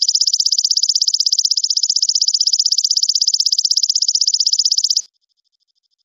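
Recorded animal call, a rapid high-pitched trill of even pulses at about ten a second, holding steady and then cutting off abruptly about five seconds in.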